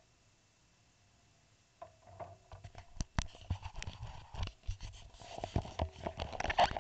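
Handling noise on an onboard camera: irregular clicks, knocks and rubbing scrapes as a hand works on the camera, starting about two seconds in and getting busier toward the end.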